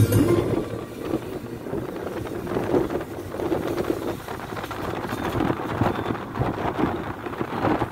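Road and wind noise inside a moving car's cabin, with wind buffeting the microphone.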